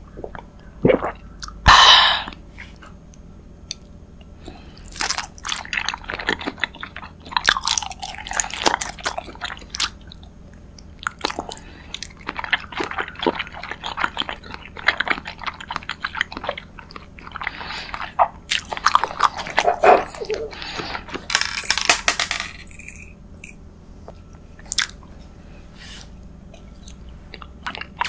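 Close-miked mouth sounds of eating: a loud slurp from a small cup about two seconds in, then chewing in bursts of wet, crackly clicks with short pauses between them.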